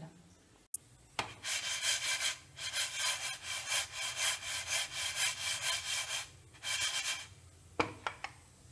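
Dry lentils being stirred in a dry frying pan while roasting: a scratchy, rhythmic scraping rustle that pulses a few times a second. It starts just over a second in, pauses briefly, and stops about seven seconds in, followed by a couple of sharp clicks.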